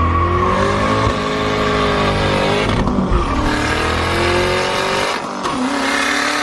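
Turbocharged Ford Crown Victoria V8 at full throttle on 7 psi of boost, revs climbing hard through the gears, with a drop in revs at a shift about 3 seconds in and another about 5 seconds in. The turbo is loud.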